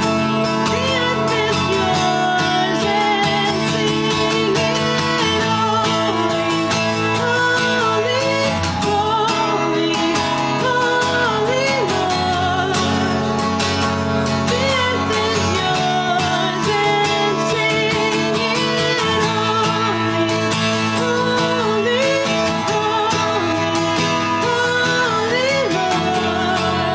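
A song: a singing voice over guitar accompaniment, steady throughout.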